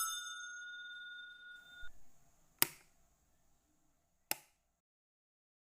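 A ringing, ding-like tone fades out over about two seconds, followed by two sharp clicks a little under two seconds apart.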